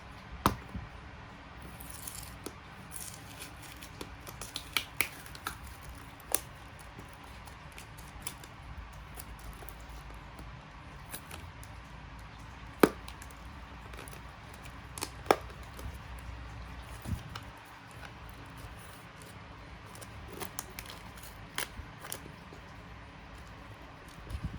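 Hands handling a mechanical keyboard and its packaging: scattered sharp clicks and taps, a few louder knocks, and a stretch of rustling.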